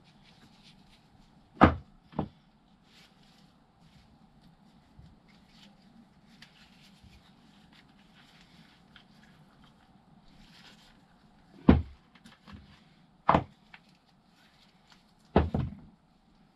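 Parts and tools being knocked and set down on a workbench while motorcycle suspension parts are stripped. There are five sharp knocks, irregularly spaced: two close together about a second and a half in, three more in the second half. Faint handling noise fills the gaps.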